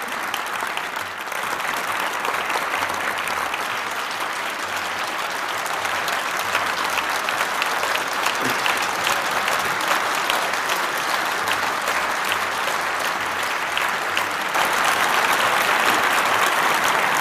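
Large audience in an auditorium applauding: continuous clapping from many hands, which grows louder near the end.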